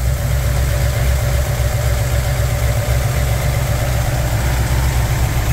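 Ford 351 Cleveland V8 idling steadily at full operating temperature, run hot to burp trapped air out of the cooling system.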